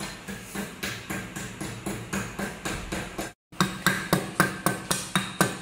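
Chinese cleaver chopping ginger on a thick wooden cutting board, mincing it to a paste: rapid, even strokes about four to five a second. After a brief break about three seconds in, the strokes come louder.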